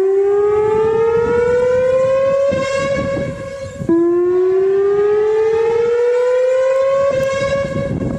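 Australian emergency alarm siren sounding a slow rising sweep. The tone climbs in pitch for about three seconds, holds briefly, then snaps back down and climbs again, twice.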